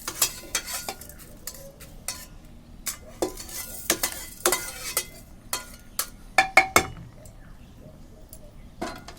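Metal kitchenware being handled: utensils and pots clinking and scraping, with a few sharp ringing knocks about six and a half seconds in, then it goes quieter.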